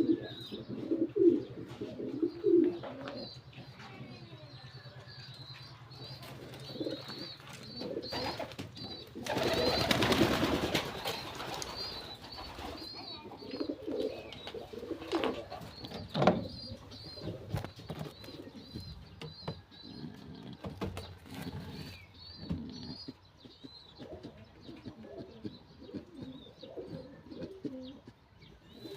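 Pigeons cooing, low and repeated, with a series of short high chirps over them. About ten seconds in, a loud rustling burst lasts about two seconds.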